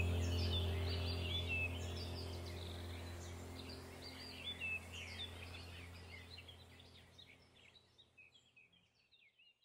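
Small birds chirping and twittering over a steady low hum, the whole fading out evenly to silence near the end.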